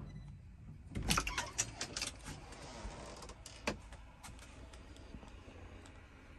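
Faint clicks and knocks over a low rumble: a quick cluster of them about a second in, and a single sharper knock a little past halfway.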